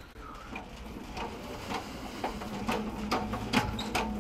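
Metal stocking cart loaded with boxes being pushed along: its wheels rumble over the hard floor, and the frame gives irregular clicks and rattles, over a steady low hum.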